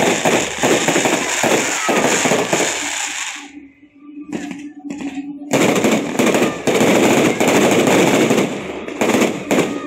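Fireworks barrage: a dense, rapid run of bangs and crackle that stops abruptly about three and a half seconds in and starts again about two seconds later.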